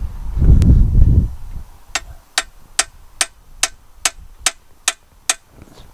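Wind buffeting the microphone as a low rumble for about the first second, then a hammer tapping a metal drift against the diff lock shaft in a cast-iron tractor rear axle casting. There are nine light, evenly paced metallic taps, a little over two a second, as he tries to drive the diff lock out.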